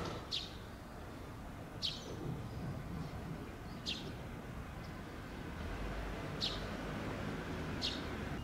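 A bird calling: five short, high chirps, each sliding quickly downward in pitch, repeated every couple of seconds over faint background noise.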